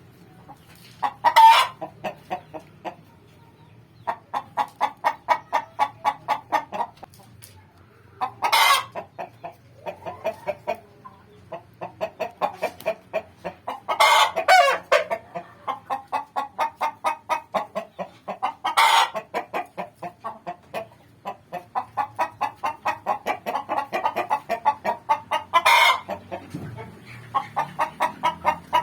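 Hen cackling before laying an egg: long runs of quick clucks, about five a second, each run capped by a louder drawn-out squawk, repeated about five times.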